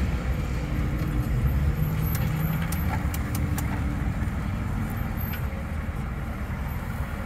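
A 2001 Hummer H1 driving, heard from inside the cab: its 6.5-litre turbo diesel V8 runs steadily under tyre and drivetrain noise. There are a few light clicks about two to three and a half seconds in, and the sound eases slightly toward the end.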